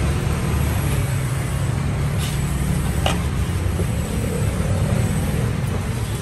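Steady low rumble of road traffic, with two short crinkles of plastic bags being filled by gloved hands, about two and three seconds in.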